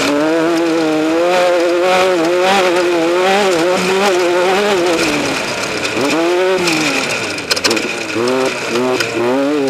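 Off-road race vehicle's engine running hard, its pitch wavering up and down, then rising and falling quickly several times in the second half as the revs change. There is a brief clatter of sharp clicks partway through.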